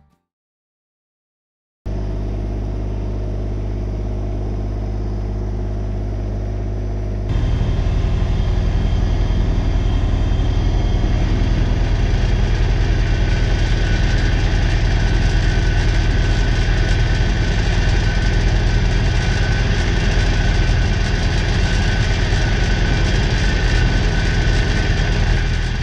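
New Holland Workmaster 25S compact tractor's three-cylinder diesel engine running steadily; it comes in about two seconds in and gets louder about seven seconds in.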